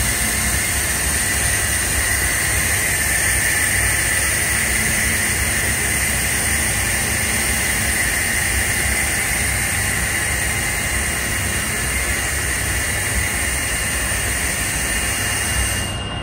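BAAM large-format 3D printer running as its extruder head lays down a hexagonal wall, a steady machine hiss over a low rumble. The higher part of the hiss drops away near the end.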